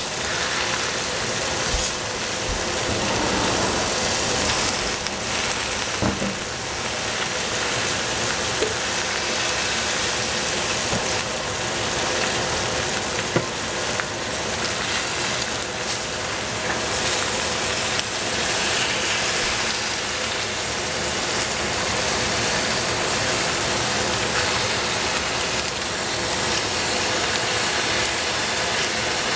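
Seafood and cabbage frying in a pan, a steady sizzling hiss, with a few light clicks of a cooking utensil.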